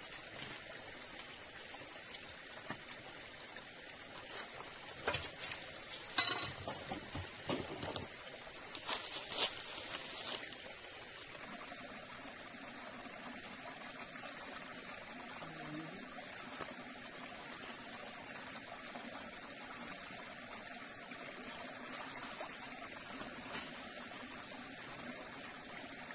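Shallow forest stream trickling over rocks, faint and steady, with a few knocks and crunches between about five and ten seconds in.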